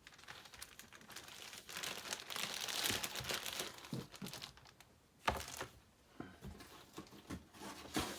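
Crinkling and rustling of packing material as graded comic slabs are handled and unwrapped, loudest a few seconds in, with a sharp knock about five seconds in and small clicks.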